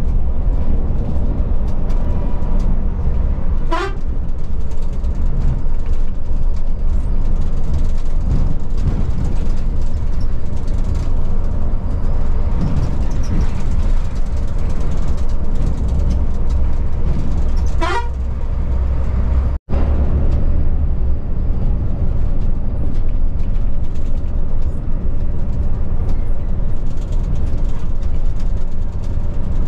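Volvo B11R coach driving at highway speed, heard from the front of the cabin: a steady low engine and road rumble. Two brief rising whistle-like sounds come about 4 s and 18 s in, and the sound cuts out for an instant just before 20 s.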